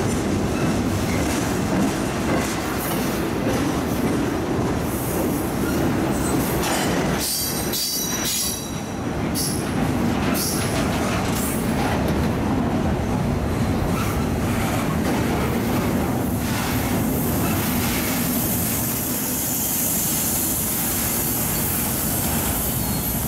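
CSX double-stack intermodal freight train's well cars rolling past at speed, a steady rumble and clatter of steel wheels on the rails. Brief high wheel squeals come about seven to nine seconds in.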